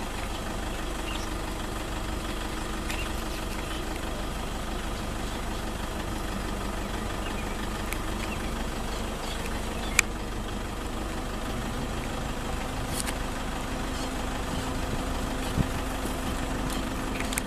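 Safari vehicle's engine idling steadily, with a single sharp click about ten seconds in.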